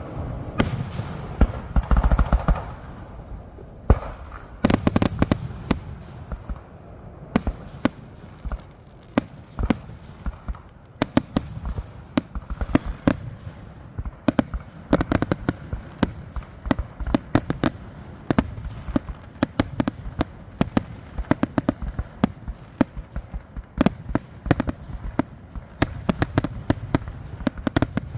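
Fireworks going off: a rapid, irregular run of sharp cracks and pops, with heavier booms about 2 and 5 seconds in.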